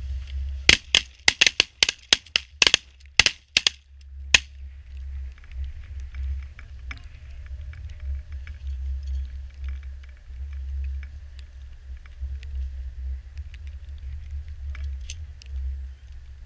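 A rapid volley of about a dozen shotgun blasts from several hunters' 12-gauge shotguns firing together at incoming geese, packed into the first four seconds or so, then stopping.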